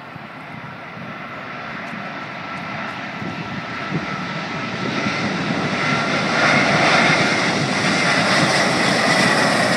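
Airbus A380's four jet engines on landing approach, a rushing roar with a steady high whine, growing steadily louder as the airliner comes closer.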